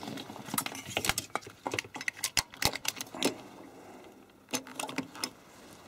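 Quick, irregular small clicks and rattles as a power cable's plug is handled and pushed into the back of an HP 8568B spectrum analyser, busiest in the first three seconds, with a few more about four and a half seconds in.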